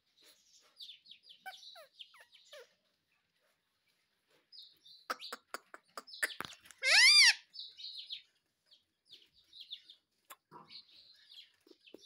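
Indian ringneck parakeet chattering in soft, high chirps, with a run of sharp clicks near the middle and one loud arching squawk about seven seconds in.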